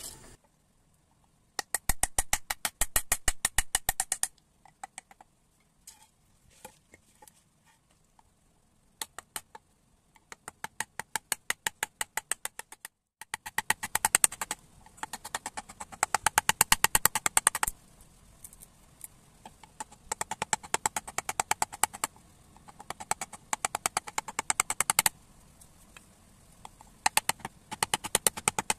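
Carving gouge driven into wood by quick, light mallet taps, in runs of rapid sharp knocks with short pauses between them, cutting out the curved ridges of a wooden conch.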